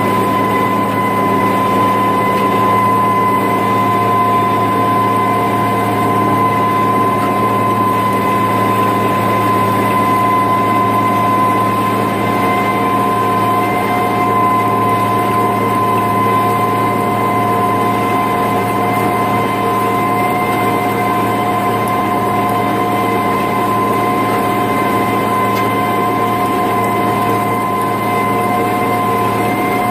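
International 3588 2+2 tractor's six-cylinder turbo diesel running steadily under load while pulling a 25-foot disc through corn stubble, with a steady high whine over the engine drone.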